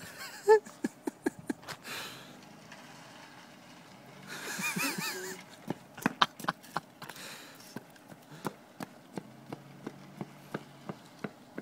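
Footsteps and scattered sharp clicks on asphalt close by, with a short laugh about four and a half seconds in.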